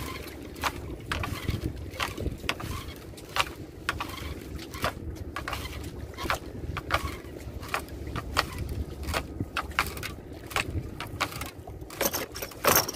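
Sharp, irregular knocks and clicks, about one or two a second, over a low steady rumble: a gill net being hauled aboard a small boat, with its sinkers and mesh knocking against the hull.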